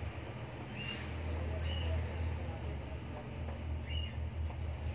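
A few short, faint high squeaks from newborn kittens nursing on their mother, about three of them, over a low steady hum and a high chirp repeating about three times a second.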